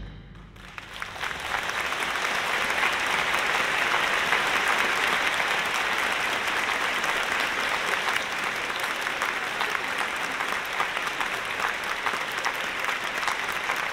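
Audience in a concert hall applauding at the end of a wind band piece. The last chord fades into the hall's reverberation at the start, then the clapping swells within about a second and continues steadily.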